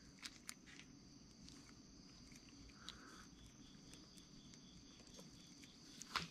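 Near silence: faint steady workshop hum with a few soft clicks as gloved fingers seat the oil pump gears, and one sharper click near the end.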